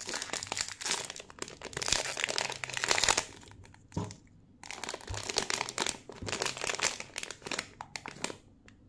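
Foil blind-box wrapper being torn open and crinkled by hand, crackling in two long spells with a short pause in between.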